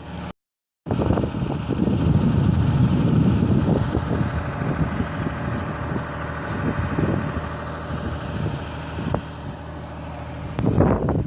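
An engine running steadily at idle, with a half-second dropout just after the start.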